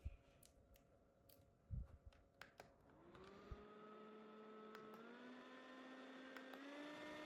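A few light clicks and taps of handling, then the small electric motor of a mini handheld fan starts about three seconds in with a rising whine. It steps up in pitch twice, each time after a click, as the fan is switched to higher speeds.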